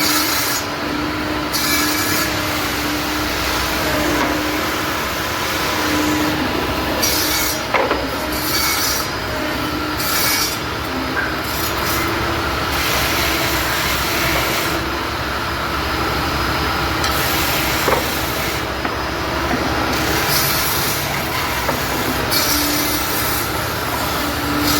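A tool working wood in repeated passes of about one to two seconds each, over a steady hum.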